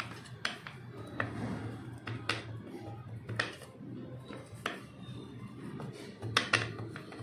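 Brass cardamom pestle pressing and tapping small rounds of mathri dough flat on a metal plate: irregular light clicks and taps, roughly one a second, with a low steady hum beneath.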